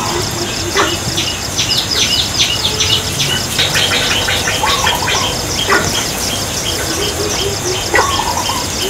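Wild birds calling in forest: many quick high chirps and short trills, with a short low note repeated over and over and a brief warbled phrase twice, over a steady high hiss.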